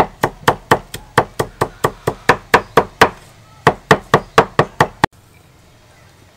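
A steel cleaver chopping chives on a wooden chopping board: a steady run of sharp knocks, about four a second, with a brief pause about three seconds in. The chopping stops abruptly about five seconds in.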